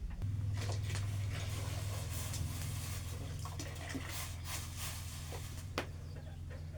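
Tea cooking on a firewood fire: scattered crackles and sharp pops from the fire and the heating pot of milk, over a steady low hum.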